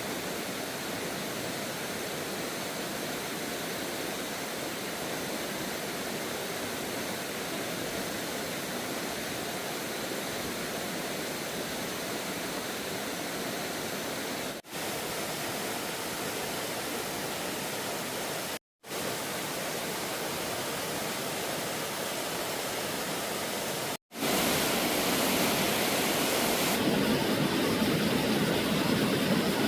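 Rushing water of a waterfall, a steady even rush. It drops out briefly three times, and after the last break, about 24 seconds in, it comes back louder and fuller.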